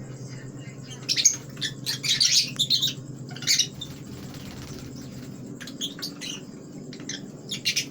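Small birds chirping in several quick clusters, the busiest between about one and three seconds in and another flurry near the end, over a steady low hum.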